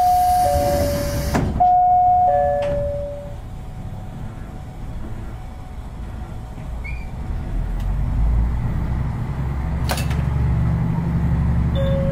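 Cab of a KiHa 54 diesel railcar: a descending two-note chime sounds twice as the doors close with a hiss of air. Then the diesel engine's low rumble builds as the railcar starts to pull away, with a clunk about ten seconds in.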